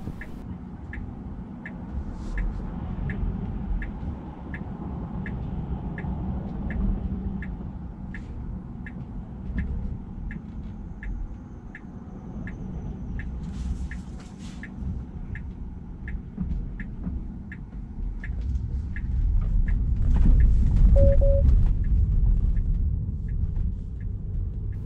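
Tesla turn-signal indicator ticking steadily, about one and a half ticks a second, over the low hum of passing traffic heard from inside the cabin. Near the end a louder rumble swells as the car pulls out through the left turn, and the ticking stops.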